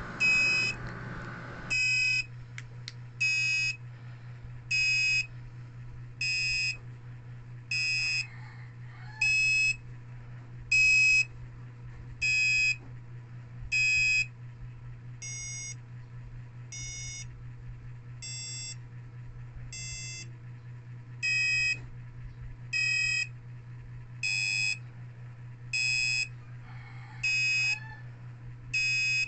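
Arduino-driven buzzer beeping about once every second and a half, each beep short and pitched, the tone shifting from beep to beep as the light on the LDR changes its frequency. The beeps go quieter for a few seconds in the middle. A steady low hum runs underneath.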